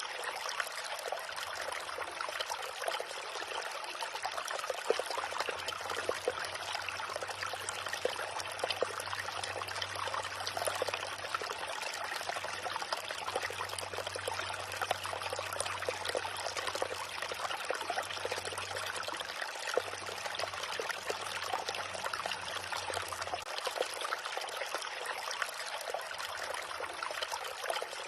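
A small river running, its water trickling and splashing steadily, with many small splashes and no let-up.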